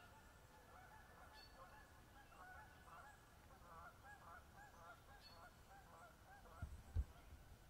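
Faint, distant honking of geese: many short calls overlapping, several a second. Two low thumps come near the end.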